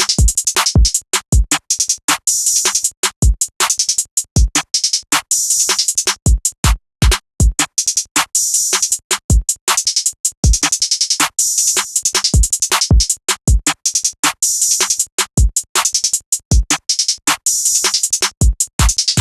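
Trap drum pattern playing from a Maschine mk2: rapid hi-hats and snare hits over booming 808 bass hits, drums alone with no melodic loop.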